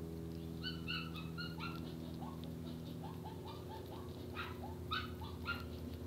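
House sparrows chirping in a run of short notes, loudest in a cluster about a second in and again near the end, over a steady low hum.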